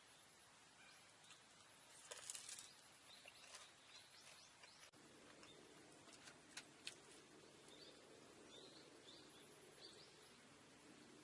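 Near silence: faint outdoor ambience with scattered soft clicks and a few faint chirps.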